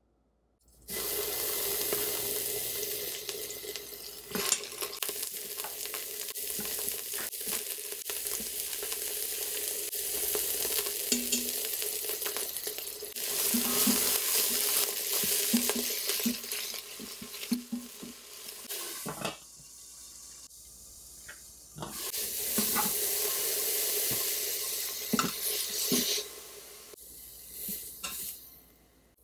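Broccoli florets sizzling in hot olive oil in an Instant Pot's stainless steel inner pot on sauté mode, with a silicone spatula stirring and scraping them against the pot. The sizzle breaks off twice for a few seconds.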